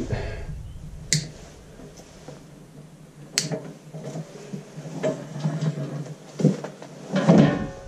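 A coiled rubber air hose being handled and lifted off an air compressor: soft rubbing and knocking, with two sharp clicks about a second and three and a half seconds in.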